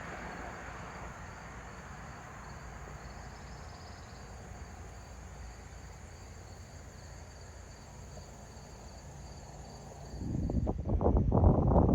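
Insects trilling steadily, high and faint, over a low rumble. About ten seconds in, a louder rush of wind on the microphone comes in.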